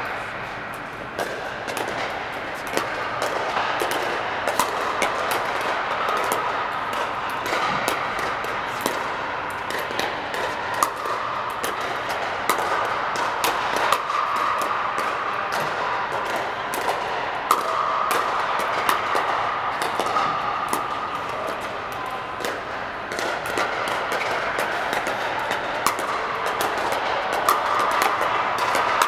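Pickleball paddles striking the hollow plastic ball: sharp pops, irregularly spaced and often several a second, from this rally and neighbouring courts, over steady background noise.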